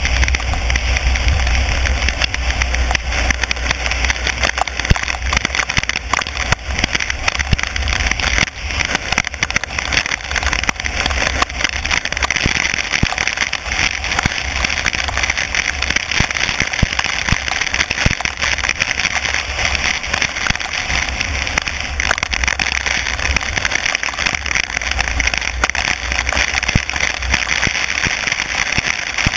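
Car driving on a wet road in heavy rain: rain strikes the car and camera as a dense hiss with many small ticks, over the low rumble of the engine and tyres.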